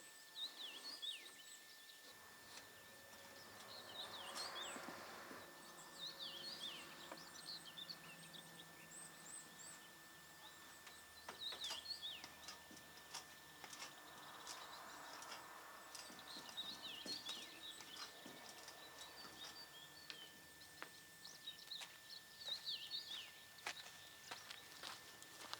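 Faint outdoor ambience of small birds chirping and calling repeatedly, with scattered light clicks and knocks.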